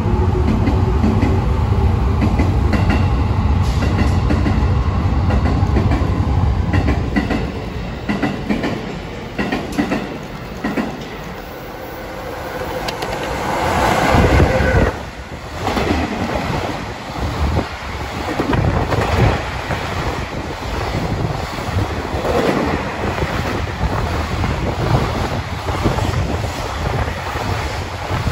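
JR Freight EF66 electric locomotive hauling a freight train past at speed. A heavy low rumble fades over the first third, the locomotive's noise builds to the loudest point about halfway through as it goes by, and then the container wagons' wheels clatter over the rail joints in a steady clickety-clack.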